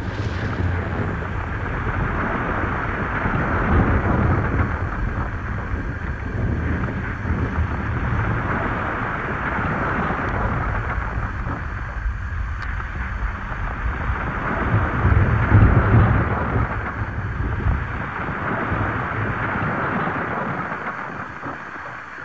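Underwater rumbling and hissing of lava meeting seawater, with steam and gas bubbles streaming up. The deep rumble swells louder about four seconds in and again around fifteen seconds, then eases near the end.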